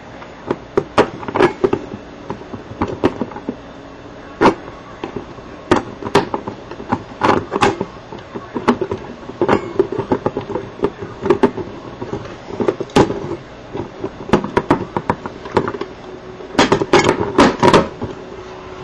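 Laser-cut metal plates and washers clicking and clinking against each other and the bolts as a plate is slid down onto the stack; irregular sharp taps, with a quick run of them near the end.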